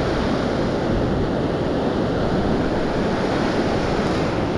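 Ocean surf breaking and washing up the sand at the water's edge, a steady rush of water.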